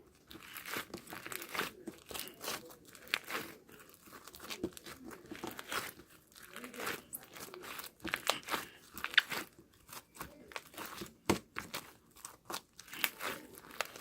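Slime being squeezed and worked by hand, making irregular crunching, crackling clicks.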